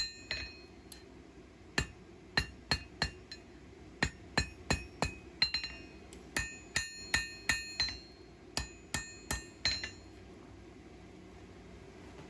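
Blacksmith's hand hammer striking hot high-carbon steel on an anvil, about twenty ringing blows in quick irregular groups while shaping a small knife's handle; the blows stop about ten seconds in.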